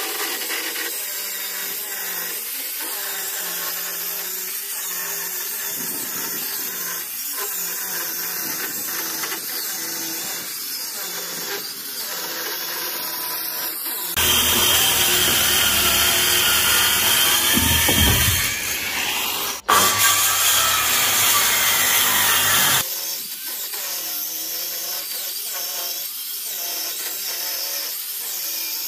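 Handheld electric circular saw ripping the waste edge off a wooden board, running steadily through the cut. About halfway through it gets louder and deeper for several seconds, with one brief dip, then settles back to the lighter sound.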